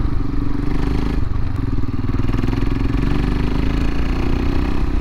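Royal Enfield Himalayan's single-cylinder engine running steadily at low road speed, with wind and road noise.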